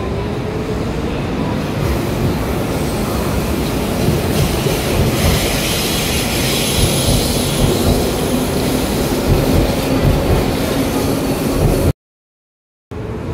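Hanshin 5001-series chopper-controlled commuter train moving along the platform and past, with a rising whine from its traction equipment in the first couple of seconds as it gathers speed. Wheel and rail noise and a hiss follow as the cars go by. The sound cuts out for about a second near the end.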